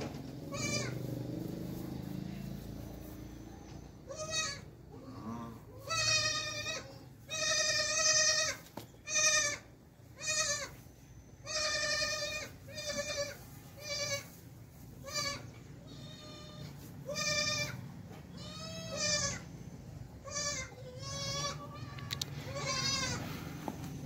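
Goats bleating over and over: a dozen or more high, wavering calls, each under a second long, coming every second or two.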